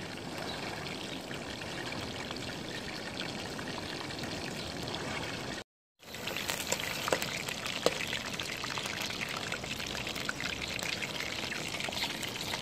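Trout frying in hot oil, a steady sizzle mixed with the hiss of falling rain. The sound drops out for a moment about halfway, then comes back with more sharp crackles.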